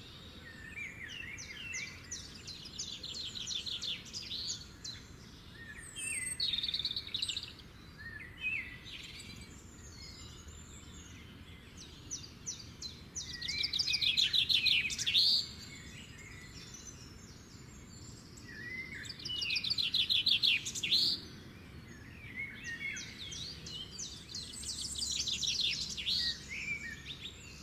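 Small birds singing: phrases of rapid high trills and chirps repeating every few seconds over a faint steady background.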